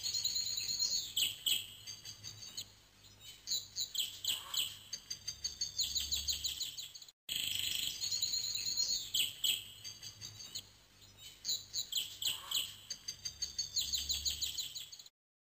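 Birdsong: clusters of quick, high chirps and trills over a faint low hum. The same stretch of song cuts out briefly about halfway and then plays again, ending abruptly just before the end.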